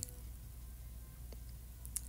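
Faint room tone with a steady low hum and two small clicks in the second half.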